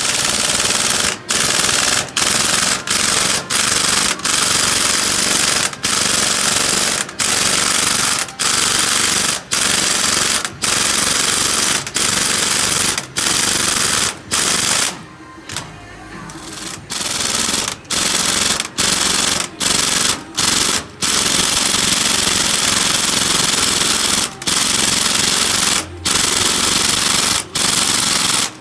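Pneumatic impact wrench hammering in long bursts with short breaks between them, unscrewing a bolt from a brake assembly on an axle; a longer pause comes about halfway through.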